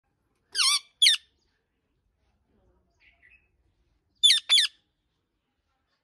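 Parakeet giving two pairs of short, harsh squawks, the first pair about half a second in and the second about four seconds in, with a few faint chirps between.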